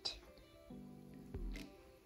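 Faint background music: a few held, ringing notes come in just under a second in.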